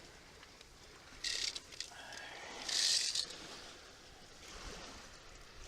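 Steady wind and water noise along the shore, broken by two short scraping rustles, one about a second in and a louder one about three seconds in.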